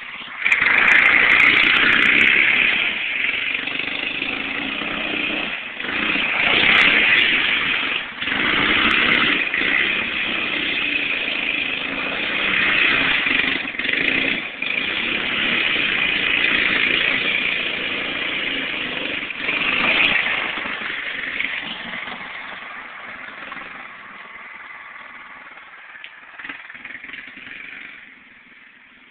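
A go-kart's single-cylinder four-stroke racing engine with an RLV header and muffler, revving hard as the kart is driven, with several brief drops as the throttle is lifted. It fades gradually over the last several seconds.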